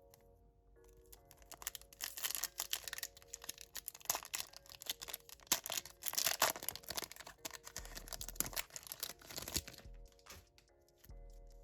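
Pokémon trading-card packaging being torn open and crinkled, a dense crackling rustle that runs for most of the stretch and eases off near the end, over soft background music.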